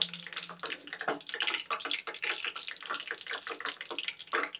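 Raw peanuts frying in hot oil in a small steel tempering pan: a dense, irregular sizzle full of fine crackles.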